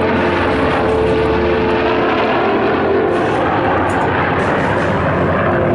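Heritage Flight formation of an F-22 Raptor, F-35 Lightning II and P-51 Mustang flying past, giving a loud, steady rush of jet and propeller noise.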